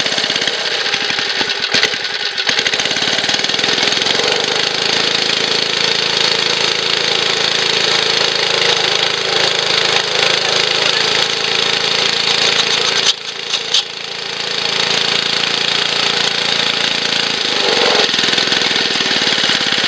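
Small 2 hp Montgomery Ward gas engine running steadily, belt-driving an air compressor pump being tried as a pressure and vacuum pump. The sound drops briefly about two-thirds of the way through, then carries on.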